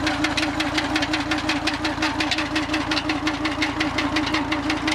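Tractor diesel engine running steadily while it powers a tubewell pump through its PTO shaft. It makes a rapid, regular clatter over a steady hum.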